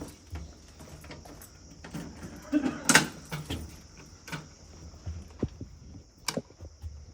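Scattered knocks and clicks of things being handled, the loudest a clatter about three seconds in, over a steady high hiss.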